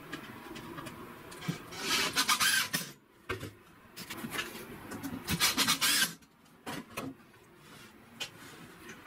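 Rough rubbing against a wooden workpiece, in two rasping bursts of about a second each, followed by a few light knocks.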